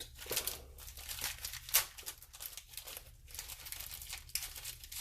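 Packaging of a hobby parts kit being opened by hand: irregular crinkling and tearing, with one sharper crackle a little under two seconds in.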